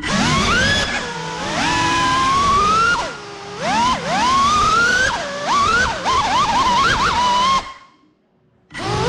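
Drone's brushless motors whining in bursts while the crashed quadcopter is stuck on the floor, pitch spooling up and dropping sharply as the throttle is blipped. The motors cut out for about a second near the end.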